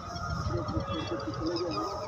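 A flock of birds calling, a wavering honking call over scattered higher chatter, with a low rumble of wind on the microphone.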